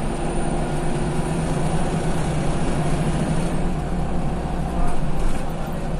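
Scania CL94UB city bus heard from inside the passenger cabin: the engine runs steadily under a low rumble, with a faint high whine that fades out midway. About five seconds in comes a brief, louder noise.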